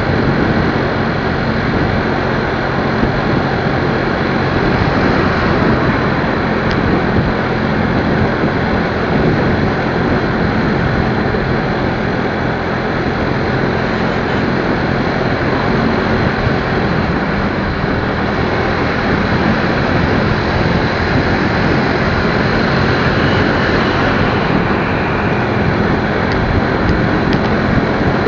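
Steady rush of wind and road noise with a low engine hum underneath, as heard riding a motorcycle.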